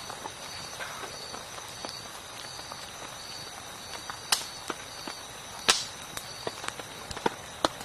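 Sharp cracks and snaps at irregular intervals, the loudest about four and a half and six seconds in, over a steady high-pitched chirring that pulses about every two-thirds of a second.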